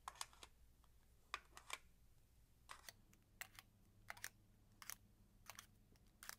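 Digi-Block plastic base-ten blocks clicking as they are scooped one after another into a plastic packing tool: a series of faint, sharp clicks in small clusters, coming at a steadier pace of about one cluster every two-thirds of a second after about three seconds.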